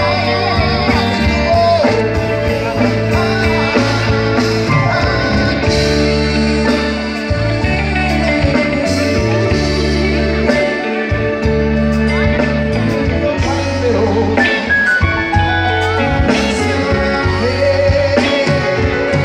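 A live band playing amplified rock music through a stage PA, with electric guitar, drums and a steady bass line, and a singer's voice over it.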